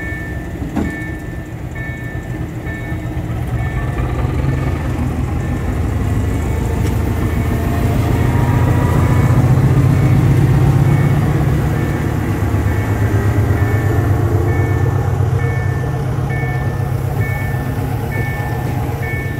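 SM42 diesel-electric locomotive's engine working as it pulls a passenger train away, growing louder as it passes close about ten seconds in, then easing as the double-deck coaches roll by. A regular two-tone beeping about once a second runs underneath.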